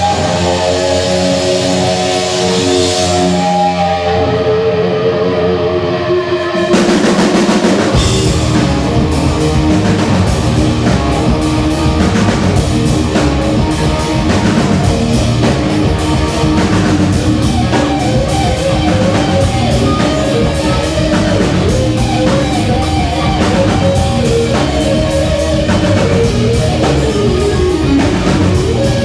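Rock music with guitar and drum kit: held chords for the first several seconds, then about seven seconds in the drums and full band come in with a steady beat.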